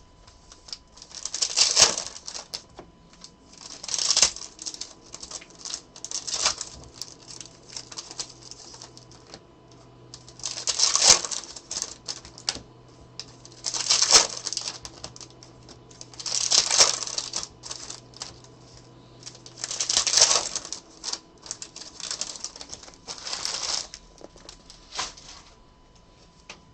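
Plastic trading-card pack wrappers being torn open and crinkled, in about nine short crackly bursts every few seconds.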